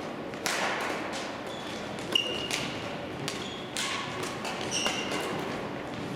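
Badminton rackets striking a shuttlecock and court shoes squeaking on the sports-hall floor: sharp hits scattered throughout, the loudest a little after two seconds, with short high squeaks about two and five seconds in.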